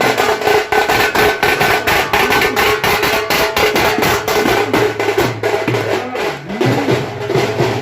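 Rapid, steady drumming, about five or six strikes a second.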